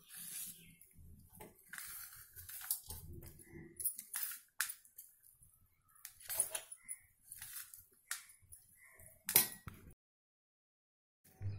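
Steel spoon stirring cooked rice and tempering in a steel plate: irregular scrapes and clinks of spoon on metal, with one sharper clink about nine seconds in. The sound drops out to complete silence for over a second near the end.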